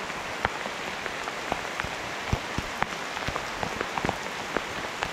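Rain shower falling steadily: an even hiss of rain with single heavy drops tapping sharply, about two a second.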